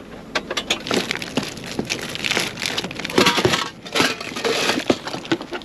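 Plastic bags crinkling and rustling, with irregular clicks and knocks as hands rummage through a packed storage compartment and shift tins and a metal pot.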